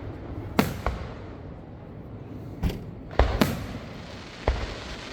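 Aerial fireworks shells bursting in a series of sharp booms, about five in five seconds, two of them close together a little past three seconds, with a low rumble between the bursts.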